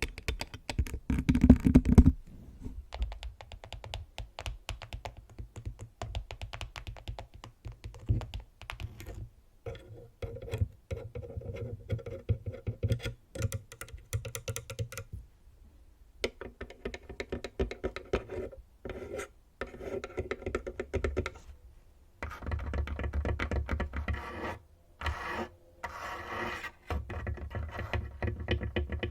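Fingernails scratching on a microphone for the first two seconds, then quick runs of fingernail tapping on a camera. About halfway through, after a short pause, fingernails tap on a tabletop in fast clicking runs.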